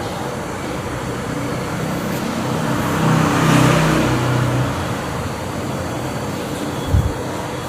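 A motor vehicle passing by amid traffic noise, its engine growing louder to a peak in the middle and then fading. A short low thump comes near the end.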